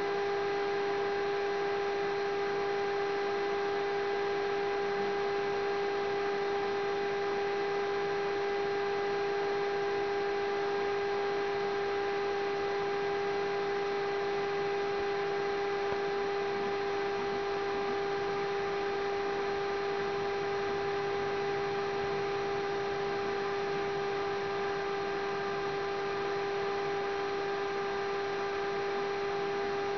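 A steady electrical hum: one unchanging pitched tone with overtones over a faint hiss.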